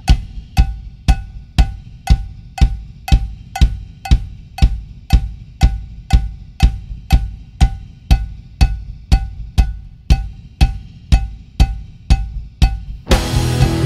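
Background music at a percussion break: even beats about two a second, each a deep thump with a short pitched click, before the full band comes back in near the end.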